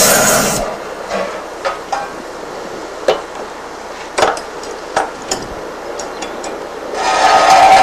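Gas torch flame hissing, cut off about half a second in as the torch is taken off the master cylinder in the firebrick box. Then scattered knocks and clicks of tools being handled and laid on a wooden bench, and near the end a hiss rises again.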